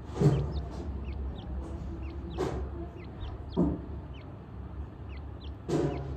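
Francolin (teetar) chicks peeping: short, soft, high notes that slide downward, two or three a second. Four louder, lower clucking calls break in among them, over a steady low hum.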